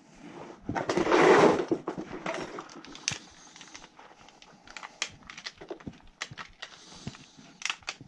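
Close handling noise: a loud rustle about a second in, then scattered light clicks and taps.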